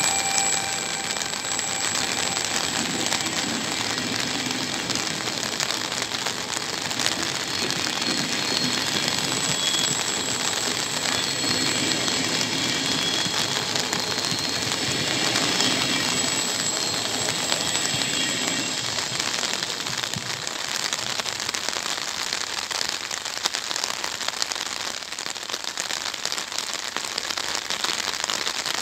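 Heavy rain pattering and crackling, with an E464 electric locomotive and Vivalto double-deck coaches rolling past and pulling away. The train's low rumble and thin high whining tones fade out about 20 seconds in, leaving the rain.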